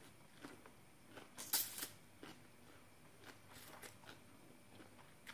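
Close mouth sounds of a person eating rice noodles and spicy papaya salad by hand: wet chewing and lip smacks in short irregular bursts, the loudest about a second and a half in.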